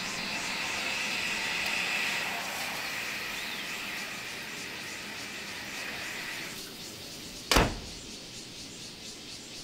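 A cabin door slamming shut once with a sharp bang about three-quarters of the way through. Before it there is a steady high-pitched hiss that fades out shortly before the bang.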